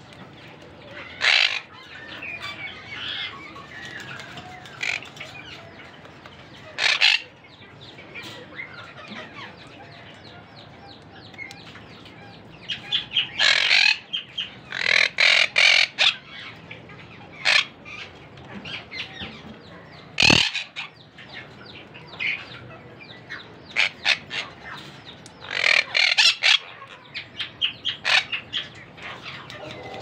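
A parakeet and its downy chicks in a clay-pot nest make short, sharp calls. Some come singly and some in quick clusters. There is one knock about two-thirds through.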